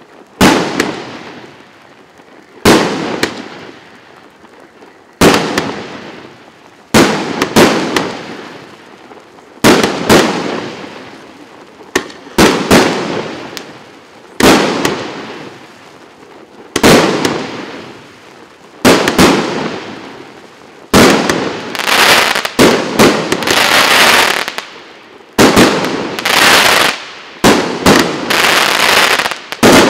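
Russkaya Pirotekhnika "Neon 36" fireworks cake (36 shots, 1.25-inch calibre) firing shot after shot: each a sharp bang with a fading tail, about one every two seconds at first. From about two-thirds in, the shots come faster and run together under a continuous crackle.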